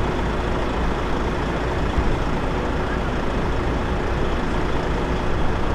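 Heavy truck engine running steadily: a deep, even rumble with a faint steady hum above it.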